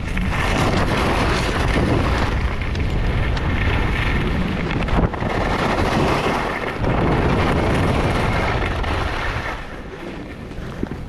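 Wind rushing over an action camera's microphone during a fast ski descent, with skis hissing and scraping over the groomed snow. One sharp knock comes about five seconds in, and the rush drops off a second or two before the end.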